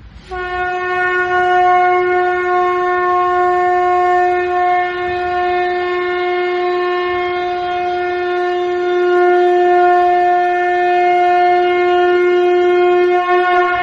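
A single long note blown on a horn-like wind instrument, starting just after the beginning and held at one steady pitch for about thirteen seconds.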